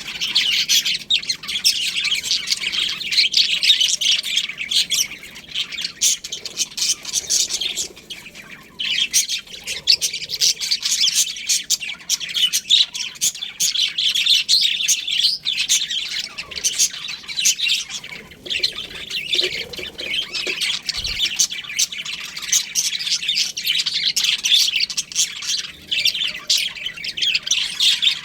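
A colony of budgerigars chirping and squawking continuously, many birds calling over one another in a dense high chatter that dips briefly a couple of times.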